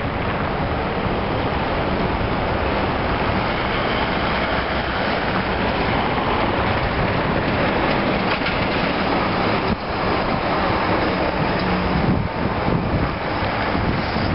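Steady city street traffic noise with wind on the microphone, and a large vehicle passing close by around the middle.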